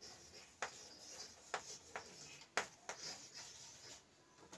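White chalk writing on a chalkboard: faint scratching broken by a handful of short, sharp taps as the strokes of a word go down.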